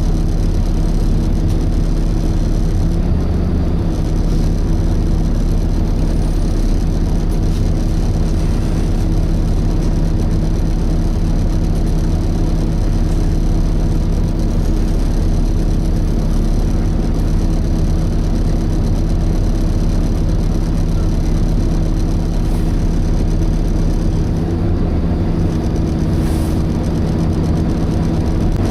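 Volvo B7TL double-decker bus heard from on board, its diesel engine running with the engine cooling fan whirring steadily in a vacuum-cleaner-like 'hoover' drone. The low rumble eases about four seconds before the end.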